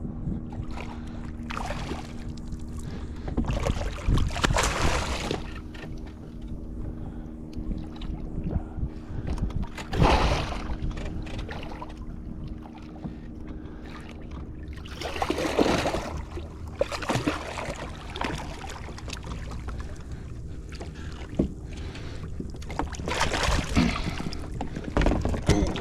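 Water splashing in several loud bursts beside a kayak as a hooked redfish thrashes at the surface, over a steady low hum.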